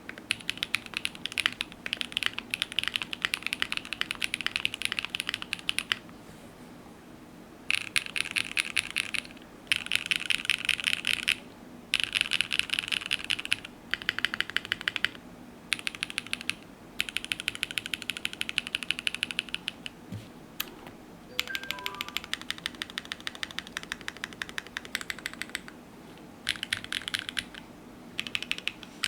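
Mechanical keyboard being typed on: a top-mounted Kawayo with a polypropylene plate and no foam, fitted with lubed Gateron Soldark switches under GMK Katakana keycaps. The keys clack in fast runs broken by short pauses.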